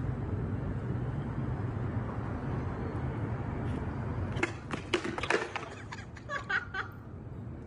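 Skateboard wheels rolling over pavement with a steady rumble, then, about four seconds in, a rapid clatter of knocks and scrapes as the rider falls and the board skids away.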